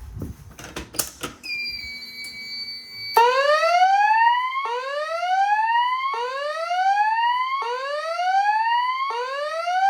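Fire alarm voice-evacuation speaker sounding a whoop tone: about five rising sweeps in a row, each about a second and a half long, starting about three seconds in. Before it come a couple of clicks and a steady high whine that starts about a second and a half in and keeps on under the sweeps.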